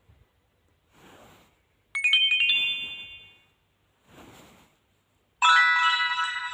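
Nokia 2680 slide phone's speaker playing a short chiming alert tone, a quick run of bright notes that rings out. A few seconds later a louder ringtone of several notes at once begins near the end.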